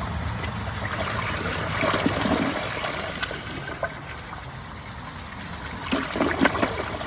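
2006 Kohler Wellworth Ingenium toilet flushing: water rushing and trickling through the bowl as it drains, gradually getting quieter.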